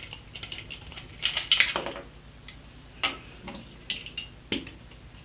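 A screwdriver turning small Phillips screws out of a plastic mains multi-adapter: a run of light clicks and scrapes, with a busier scraping spell about a second in. A few separate sharp clicks of hard plastic parts being handled follow later.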